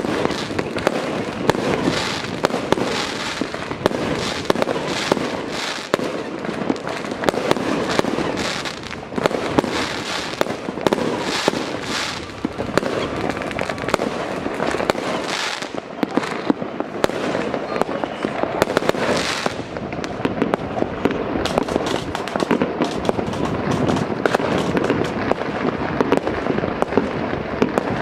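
Fireworks going off in a dense barrage: many overlapping bangs and crackling bursts, with no let-up.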